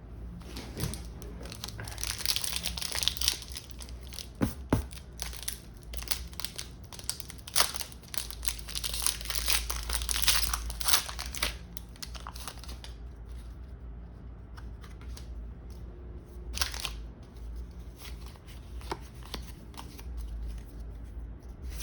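A foil Pokémon booster pack wrapper being torn open and crinkled, in dense crackling bursts for several seconds, then quieter handling with one more brief crinkle.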